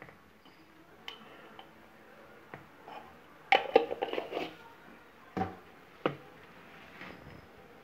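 Light knocks and clinks of kitchen utensils against a mixing bowl as baking powder is added to cake batter: a quick cluster of taps about three and a half seconds in, then two single knocks.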